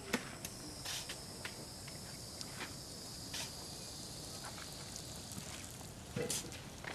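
Insects trilling steadily in a high, thin tone that fades out about five seconds in. Over it come scattered light clicks and rustles.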